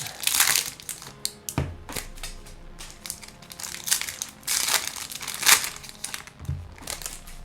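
Trading-card packaging crinkling, crumpling and tearing in irregular rustles as packs of Topps baseball cards are ripped open. Two dull thumps come in, one after a second and a half and one near the end.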